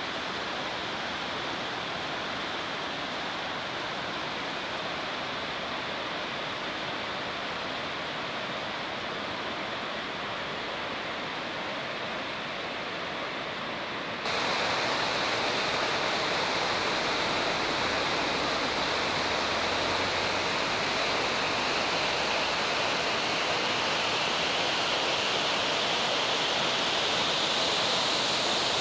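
Whitewater rapids of the Hinterrhein river rushing over boulders, a steady noise of churning water. About halfway through it jumps suddenly louder and brighter, then holds steady.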